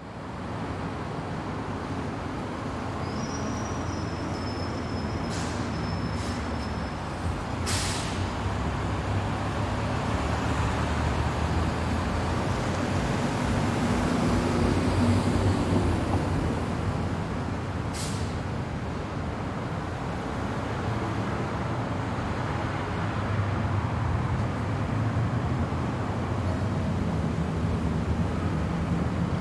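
City street traffic: a steady rumble of engines and tyres from passing vehicles. A few short hisses cut through, the loudest about 8 and 18 seconds in, and a faint high squeal sounds from about 3 to 7 seconds in.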